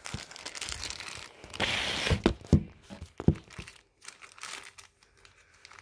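Small clear plastic bag crinkling as it is handled and pulled at, with a few sharp knocks about two to three seconds in.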